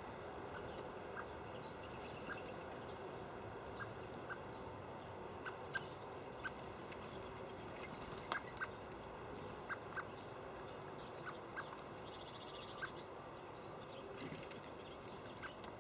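Outdoor ambience at a winter bird feeder: a steady background hiss with scattered short, sharp ticks and a few faint bird chirps.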